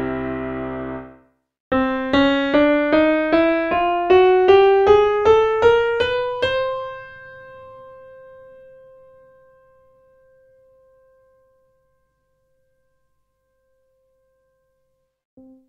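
Sampled grand piano from the free Essential Keys SFZ soundfont. A chord dies away, then single notes climb one by one through about an octave, two or three a second. The top note is held and rings out for several seconds, and another chord is struck near the end.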